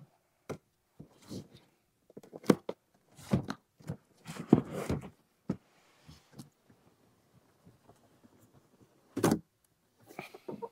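A large cardboard box being unsealed and opened by hand: scattered scrapes, rustles and knocks of cardboard, then a sharp, louder thump about nine seconds in.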